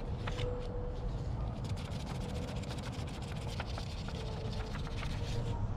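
Light crinkling and ticking of a folded sheet of paper handled and tapped by hand as corn pollen is shaken from it onto the silks, over a steady low rumble and a faint steady hum.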